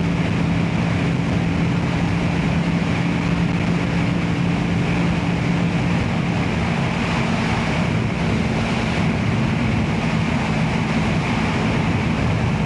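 Motorcycle engine running steadily at cruising speed under heavy wind rush on the helmet microphone; the engine note shifts about halfway through.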